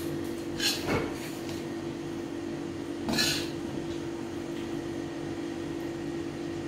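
Noodles being tossed with a spatula in a stone-coated wok: two short scrapes, about a second in and about three seconds in, over a steady low hum.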